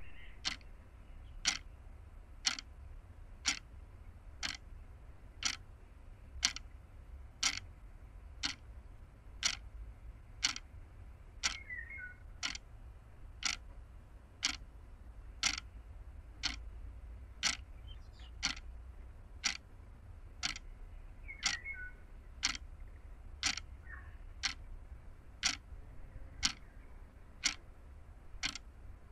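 Even ticking, one sharp tick a second like a clock's, over a steady low rumble, with two brief high chirps partway through.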